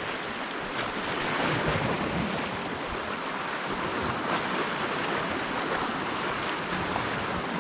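Small sea waves washing and breaking over shoreline rocks, swelling louder twice.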